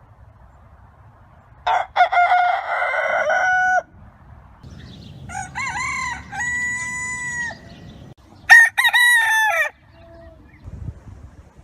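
Roosters crowing: three separate cock-a-doodle-doo calls, each lasting one to two seconds, with short gaps between them.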